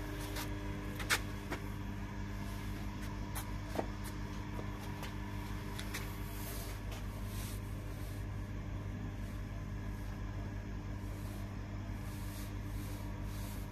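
Sharp metallic clicks and knocks of an electronic lock being handled on a truck's metal cargo-box door, the loudest about a second in and another near four seconds in, over a steady low hum.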